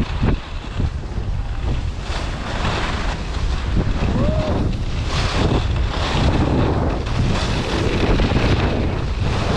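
Wind buffeting the microphone of a camera on a skier moving downhill, with the hiss of skis scraping over groomed snow swelling and fading with each turn.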